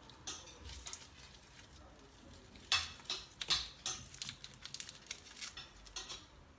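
Maggi stock cubes being unwrapped and broken by hand: the foil wrapper crinkling and the hard cube cracking, an irregular run of sharp crackles and clicks that is busiest about three seconds in.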